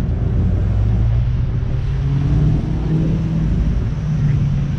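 A car engine running at low speed nearby, a low steady rumble whose pitch rises slightly about two seconds in.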